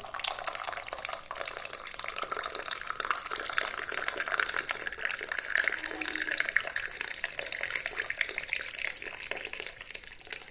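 Freshly boiled herbal tea being poured out through a strainer, a steady stream of liquid splashing into the vessel below.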